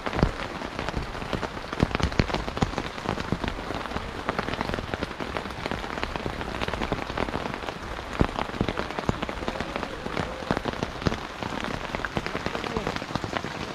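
Rain falling on a tent's fabric roof, heard from inside the tent: a dense, steady patter of many drops with sharper single hits throughout.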